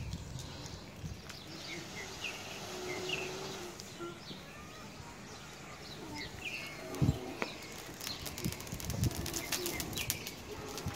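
Dry-grass tinder bundle catching fire from a hand-drill ember: soft puffs of breath blown into it, then from about eight seconds in a dense crackling as the grass burns, with one loud thump about seven seconds in. Birds chirp faintly throughout.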